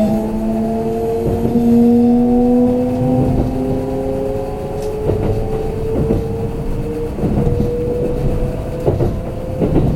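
Kintetsu limited express train heard from inside the car as it picks up speed: the traction motor whine rises slowly in pitch over a low running rumble, with a few wheel knocks over rail joints in the second half.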